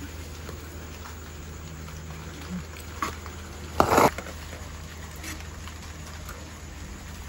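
Steady patter of light rain, with a brief loud clatter about four seconds in.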